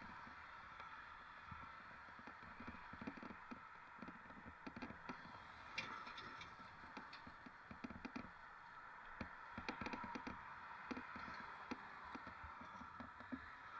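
Mountain bike riding over rough ground: a steady hiss with many irregular small clicks and rattles from the bike.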